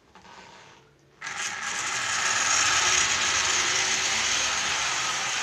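H0-scale model train running past close by: a steady mechanical whir and rattle of its motor, gears and wheels on the track, which starts suddenly and loudly about a second in.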